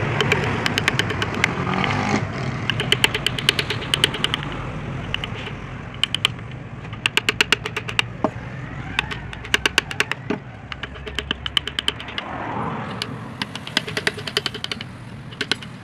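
Hand carving chisel cutting into a wooden panel: rapid sharp clicks in short bursts, over a steady hum of road traffic in the background.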